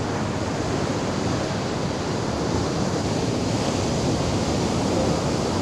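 Ocean surf breaking on a sandy beach: a steady rushing wash of waves.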